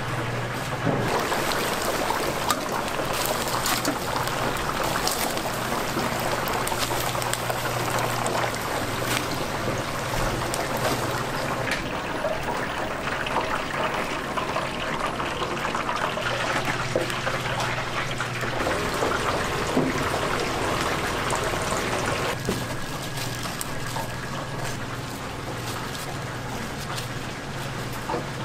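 Whole chickens deep-frying in a large vat of hot oil, the oil bubbling and sizzling steadily, with a steady low hum underneath. The sizzle eases a little about two-thirds of the way through.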